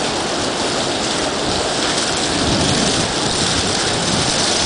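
Steady rush of tropical-storm wind and rain.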